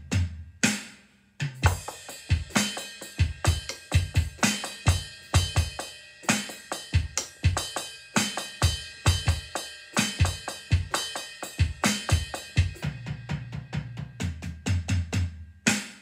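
Solo drum kit music, a computer-generated étude, playing a busy rhythmic pattern of drum and cymbal hits, with a brief break about a second in.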